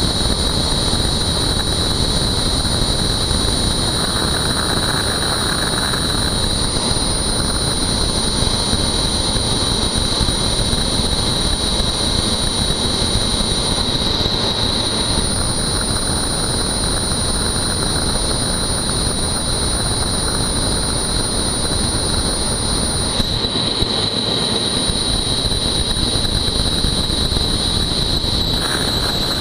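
Helicopter engine and main rotor running: a loud, steady noise with a constant high whine over it.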